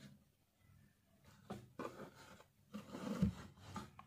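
Transparent plastic ruler being shifted and set down on a sheet of paper: a few soft scrapes and taps that start about a second and a half in, the loudest near the end.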